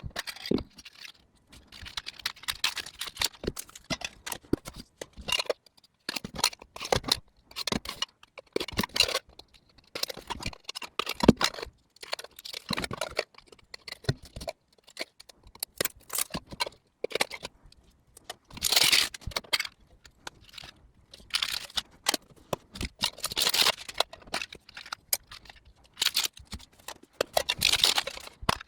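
Plastic wrap on small metal trading-card tins being slit with a knife and torn off: irregular tearing, crinkling and scraping, with clicks and knocks as the tins are handled.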